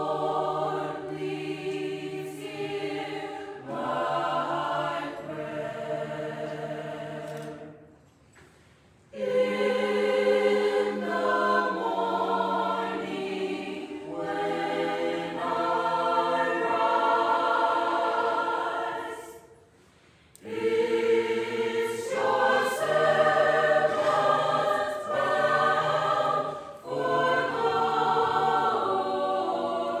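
Mixed choir of men and women singing a cappella in sustained chords. It breaks off twice, about eight and twenty seconds in, and comes back in louder each time.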